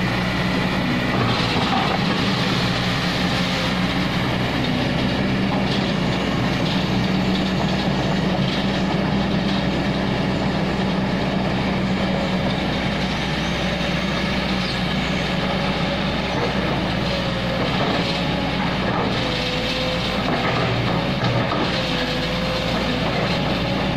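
Kobelco SK200 hydraulic excavator's diesel engine running steadily while the boom and arm work, with a wavering hydraulic whine over the engine note in the second half.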